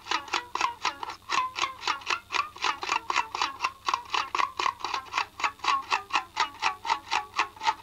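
Guitar picked in a fast, even rhythm of about five notes a second, mostly repeating the same high note with a few changes of pitch.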